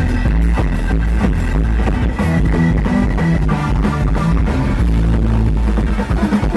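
Live band jamming loudly with heavy bass, busy drumming and horns. A high note is held for about a second partway through.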